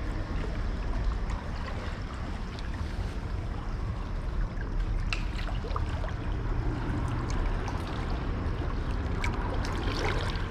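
Wind rumbling on the microphone outdoors, an uneven low buffeting, with faint water noise and a few light clicks about halfway through.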